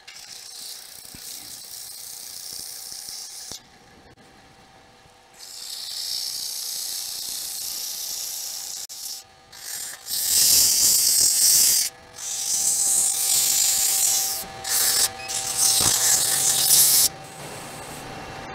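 A wooden duck-call blank spinning on a small lathe, worked by hand in several bursts of scraping hiss that stop and start, the loudest in the second half. A faint steady lathe motor whine runs underneath.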